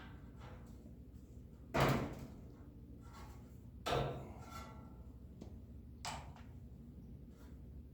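Two sharp knocks about two seconds apart, each followed by a short rattle, then a lighter knock near the end: a toaster oven's metal parts and tools being handled and set down while it is taken apart. A low steady hum runs beneath.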